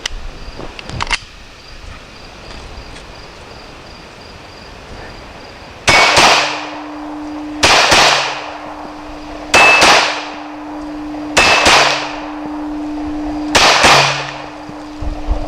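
Glock 26 9mm pistol fired in five double taps about two seconds apart, each pair two quick shots, loaded with cast lead bullets clocked around 1350 feet per second.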